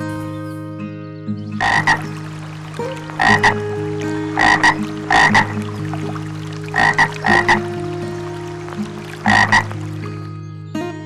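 A frog croaking in short, often doubled calls, about six times at intervals of a second or so.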